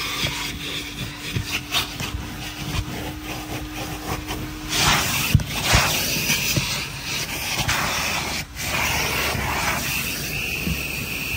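Cleaning inside a car: knocks and rubbing, then long stretches of loud hissing from about halfway through. A steady low hum runs through the first half.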